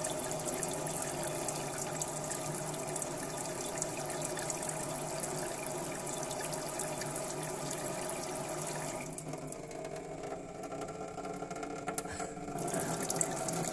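Water spraying from a kitchen faucet's shower-style spray head and splashing into a steel sink, a steady hiss. It gets quieter about nine seconds in and picks up again near the end.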